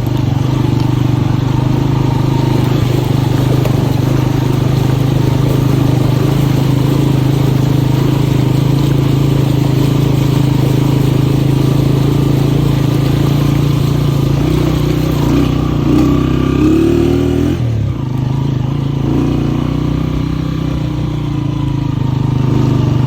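Honda CG125's single-cylinder four-stroke engine running steadily as the motorcycle is ridden. Past the middle its pitch climbs briefly, then drops sharply as the throttle comes off.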